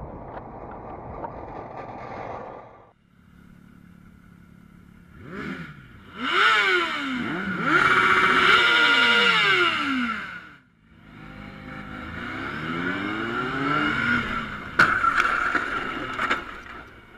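Wind and road noise for about three seconds, then a motorcycle engine revving hard, its pitch climbing and dropping repeatedly through gear changes, in two long stretches. A single sharp bang comes near the end.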